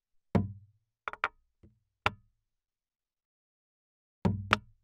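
Sharp knocks, about seven, in irregular groups: one, then a quick pair, a faint one, another single, and after a pause of about two seconds a quick pair near the end.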